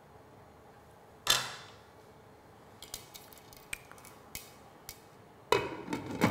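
Cookware being handled: a single sharp knock about a second in as the stirring spoon is put aside, a few light clicks, then a glass pan lid with a metal rim set down on the frying pan with a clatter near the end.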